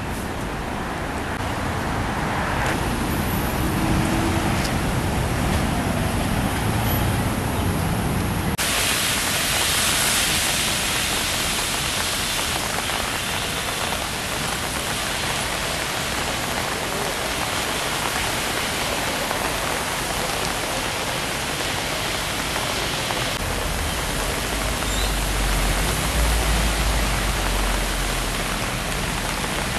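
Road traffic with engines running for the first eight seconds or so. After a sudden change, a steady hiss of rain and tyres on a wet road takes over, with a heavy truck's low engine rumble swelling in the last few seconds.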